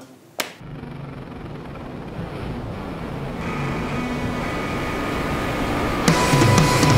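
Sound-design intro swell: a steady rushing, rumbling noise like deep water, growing louder throughout, with held tones joining about halfway. About six seconds in a louder, fuller layer cuts in as heavy rock music begins.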